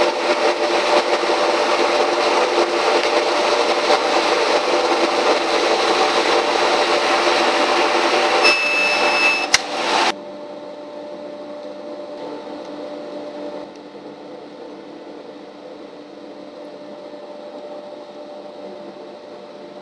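Laser cutter running as it cuts a sheet: a loud, steady whir of its fans with a low hum. Near the middle comes a high beep lasting about a second and a click, then the sound drops suddenly to a much quieter steady hum.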